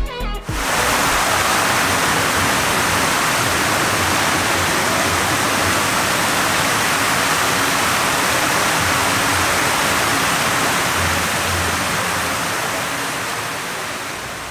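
Large fountain's water jets spraying and splashing into the pool, a steady rushing hiss that fades out near the end.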